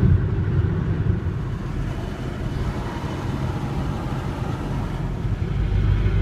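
Steady low rumble of road and engine noise inside the cabin of a Hyundai ix35 driving on a motorway.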